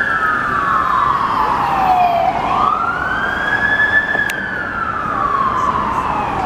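Wildland fire truck's siren on a wail, its pitch slowly sweeping up and down about once every four seconds, over street traffic noise.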